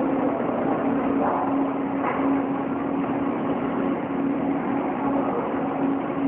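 Steady machinery noise with a low hum that keeps breaking off and coming back.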